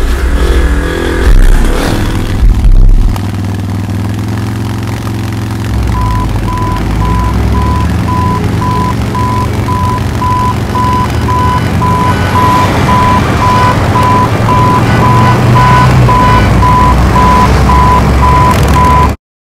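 Loud engine rumble with a few surges, then a vehicle's reversing alarm beeping rapidly at one steady pitch over the rumble of heavy machinery. It cuts off abruptly near the end.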